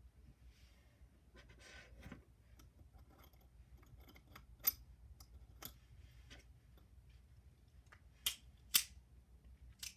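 Objects being handled close to the microphone: light rustling and scattered sharp clicks, with a louder click about halfway through and two more, half a second apart, near the end.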